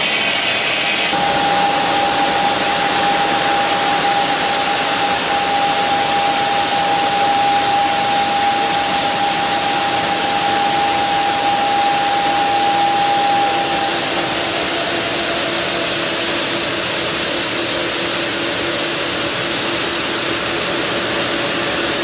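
Bridge-type granite edge cutting machine (SVM-1000) running with a steady, loud hiss. A high whine comes in about a second in and fades out about two-thirds of the way through, leaving a lower steady hum.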